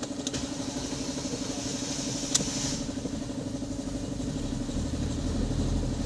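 Ford Fiesta 1.5-litre four-cylinder engine turning over on the starter with an even rhythm, one sharp click partway through, then catching near the end and running with a low rumble. This is the first start after a new timing belt, drive belt and tensioner.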